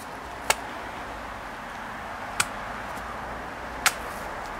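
Three short, sharp clicks spaced about one and a half to two seconds apart over a steady low hiss, as dots of cutting polish are squeezed from a plastic squeeze bottle onto a foam buffing pad.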